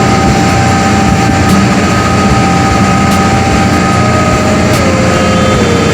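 Ferry engines running steadily: a loud, constant drone with a steady whine over it.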